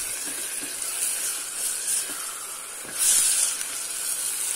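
Pigeon meat and onions sizzling in hot oil in a steel pot as they are stirred with a wooden spatula, with a louder surge of sizzling about three seconds in.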